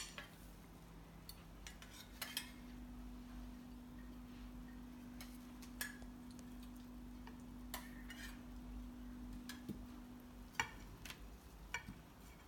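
Scattered light clinks and taps of cutlery against plates and dishes, a dozen or so short strikes spread out, over a faint steady hum that stops about ten and a half seconds in.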